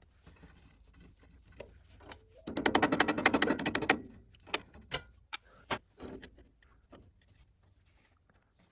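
Metalworking on steel: a loud rapid rattle of repeated strikes, about ten a second, lasting about a second and a half, then a few separate sharp metal knocks.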